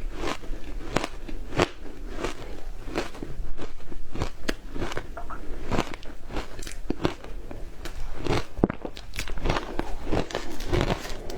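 Frozen matcha ice being bitten and chewed close to the microphone: sharp crunching cracks come repeatedly, roughly one to two a second.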